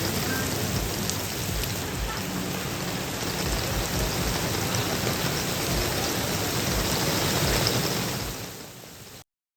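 Heavy rain pouring down, a steady rushing hiss. It fades near the end and then cuts off abruptly.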